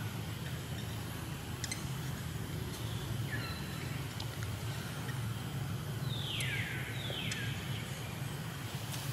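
Three short high animal calls, each sliding down in pitch, about 3, 6 and 7 seconds in, over a steady low rumble.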